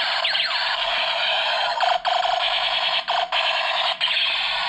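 Electronic toy assault rifle's gunfire sound effect through its small built-in speaker: buzzy falling sweeps, then a fast rattle of shots that breaks off briefly a few times as the trigger is let go and pulled again.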